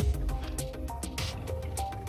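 Background music: a melody of held notes stepping in pitch over percussion hits and a heavy bass.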